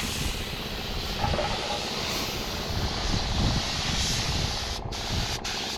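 Steady hiss of compressed air from a paint spray gun, over a low running rumble. Near the end the hiss cuts out briefly twice, as the trigger is let go.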